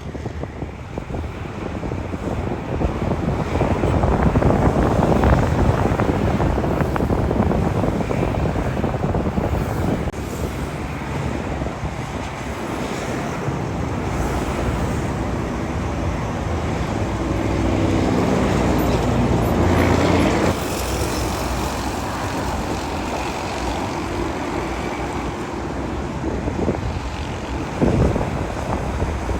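Jet airliner engines rumbling, with wind buffeting the microphone. The rumble swells about four seconds in, and a steady engine tone builds until about twenty seconds in, then drops away.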